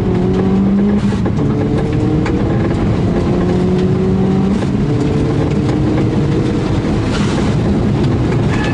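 Turbocharged rally car engine pulling hard, its pitch climbing and dropping back several times as it changes gear, over loud road noise.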